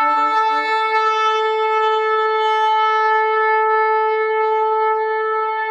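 Long blast on a horn: one steady held note that starts with a brief lower note and fades slightly near the end, sounded as an angel's trumpet call.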